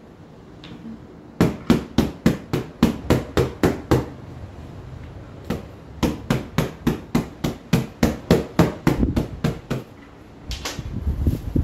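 A pillow stuffed with raw sheep's wool being patted or beaten to settle the wool: two runs of quick, even thumps, about four a second, with a short pause between them. About a second of rushing noise follows near the end.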